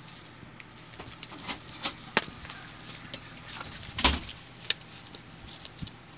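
Scattered clicks and taps of plastic DVD cases being handled, with one louder knock about four seconds in.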